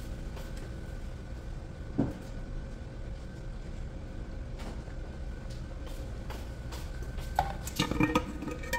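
A steady low kitchen hum, with a single knock about two seconds in. Near the end come a few clicks and knocks of kitchen containers and utensils being handled.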